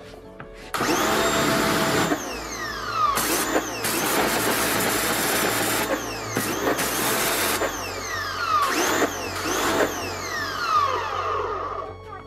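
Parkside PHD 135 C2 electric pressure washer spraying in several bursts as the trigger is squeezed and released. Each time, the water jet hisses and the motor's whine rises, then slides down in pitch once the trigger is let go, because the auto start-stop motor runs only while the trigger is pressed.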